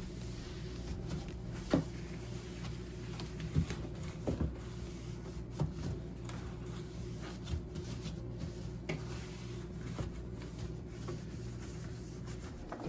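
Scattered light knocks and clicks of household items or fittings being handled, about one every second or two, over a steady low hum.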